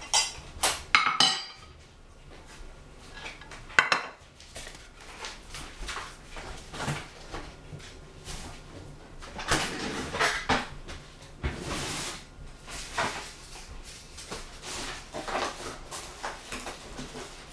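Kitchen utensils and dishes clinking and knocking against each other, with scattered clatter, the sharpest strikes about a second in and again about four seconds in.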